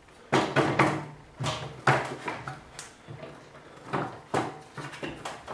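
Irregular clunks and scrapes of a circular saw being set into its wooden table-saw mount, about nine knocks spread over the few seconds.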